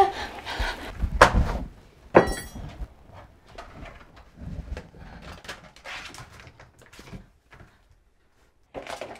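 A few knocks, then one sharp hit with a brief ringing about two seconds in, followed by faint scattered scuffling sounds.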